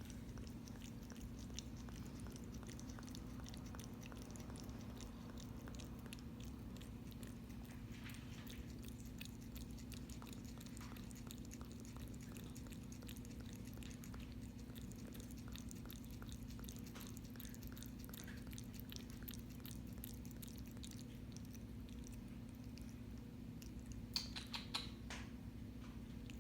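A cat eating noisily: a run of small chewing clicks and bites, with a louder burst of them near the end. A steady low hum runs underneath.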